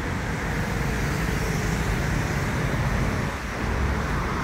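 Steady road traffic noise from cars and motorbikes passing on a wide multi-lane road.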